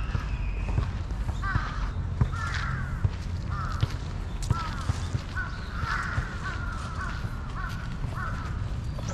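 Crows cawing: scattered caws at first, then a run of about six evenly spaced caws in the second half, over a steady low background rumble.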